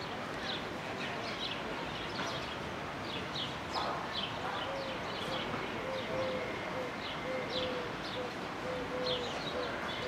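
Small birds chirping in quick, short notes throughout, with a run of short, low, evenly pitched calls repeated every half second or so from about halfway through.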